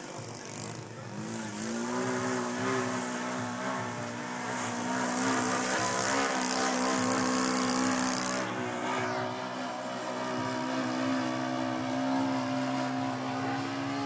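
Mojo 60 radio-controlled model airplane's engine and propeller droning in flight. The pitch rises about a second in and then holds steady, with a stretch of hiss through the middle.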